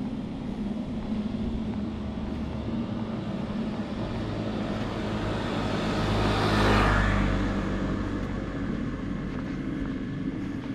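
A car passing on the street, its engine and tyre noise swelling to a peak a little past the middle and then fading away, over a steady low hum.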